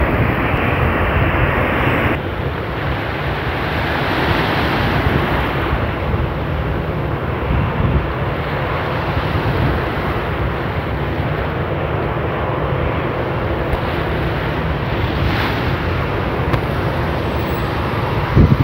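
Wind buffeting the microphone over the steady wash of surf on the shore.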